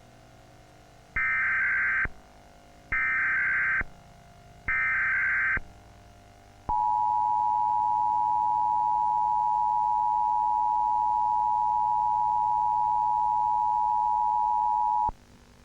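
Emergency Alert System tones: three short bursts of digital header data about two seconds apart, then the steady two-tone attention signal held for about eight seconds and cut off abruptly. This is the alert sequence that opens a tornado warning broadcast.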